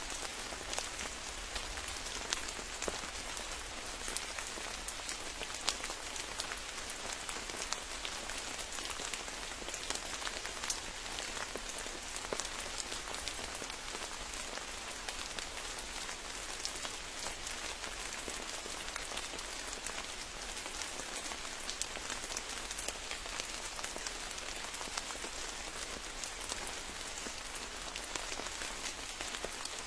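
Steady rain falling on leaves and ground, a dense even patter of drops with many small individual ticks.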